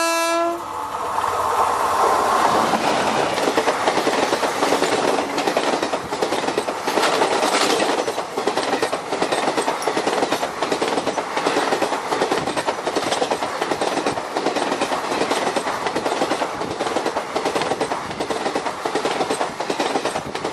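Indian Railways passenger train passing close by at speed: a steady rushing noise with the rapid clatter of coach wheels over the rail joints.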